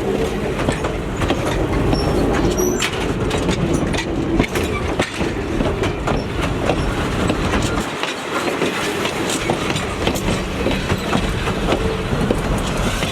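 Train rolling along the track: a steady rumble with many rapid clicks of wheels over rail joints, and a faint wheel squeal in the first second or so.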